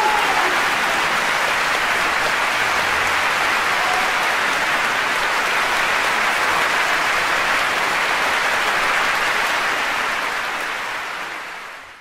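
Concert-hall audience applauding, a dense steady clapping that fades out over the last couple of seconds.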